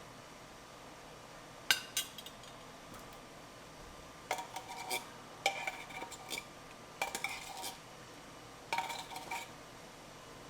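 Metal spoon knocking and scraping against a metal container: two sharp clicks, then four short bursts of ringing clinks and scrapes.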